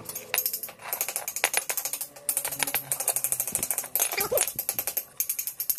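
Rapid, uneven run of sharp metallic clicks and clinks from steel swing-arm parts being handled.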